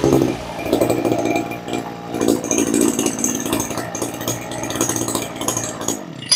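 A 40cc two-stroke chainsaw engine idling unevenly after being revved, cutting off suddenly near the end.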